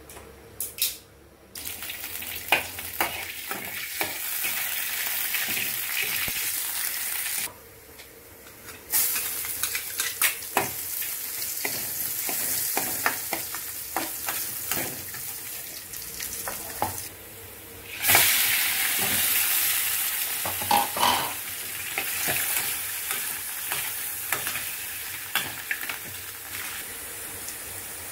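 Julienned ginger and then crab pieces sizzling as they are stir-fried in hot oil in a metal wok, with a metal spatula scraping and clicking against the pan. The sizzle drops out briefly twice.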